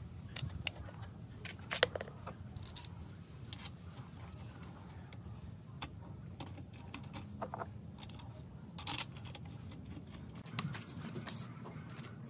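Ratchet wrench clicking and metal tools clinking against a cast-iron engine block as the connecting-rod cap bolts are tightened, with a run of quick ratchet clicks about three seconds in, over a low steady hum.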